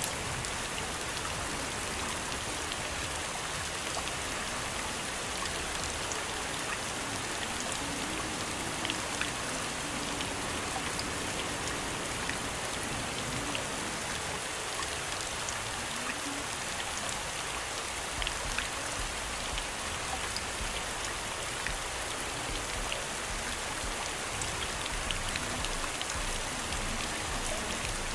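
Steady rain ambience: an even hiss of rain with scattered patters of drops.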